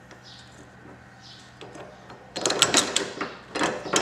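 Clicks and rattles of the tow bar's plastic electrical socket and its cover being handled, in two quick clusters from a little past halfway.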